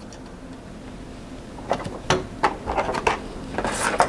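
Thin clear plastic blister packaging and small plastic model parts handled: a low steady hum at first, then a run of light clicks and rattles from about two seconds in, and a crisp crinkle of the plastic tray near the end.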